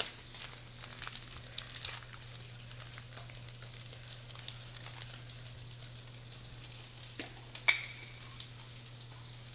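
Food sizzling and crackling in a frying pan, a stream of small ticks over a steady low hum, with one sharper click late on.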